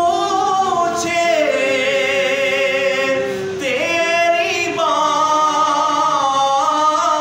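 A man's unaccompanied voice singing an Urdu naat, drawing out the words of its last couplet in long, wavering held notes that bend up and down. There is a short break for breath about three and a half seconds in.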